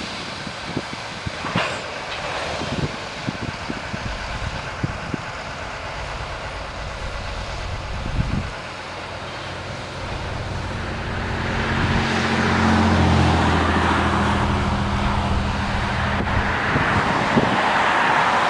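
Shuttlewagon SWX410 railcar mover working grain cars: scattered clanks and knocks, then about ten seconds in its diesel engine comes up to a louder, steady drone with a low hum under it.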